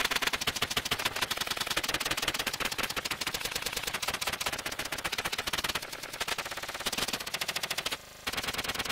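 Malfunctioning machine rattling, a designed sound effect: a fast, uneven run of clicks and clatter, with a short drop-out about eight seconds in.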